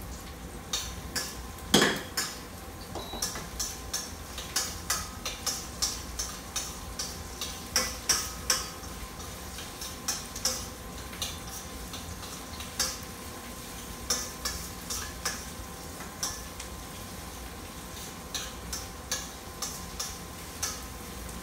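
Metal spatula knocking and scraping against a stainless steel wok while garlic and onion are stir-fried, in irregular clinks about one or two a second over a faint sizzle of frying. One louder ringing clank comes about two seconds in.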